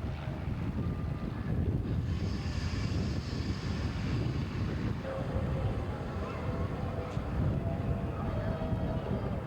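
Wind rumbling on the microphone over a steady engine drone.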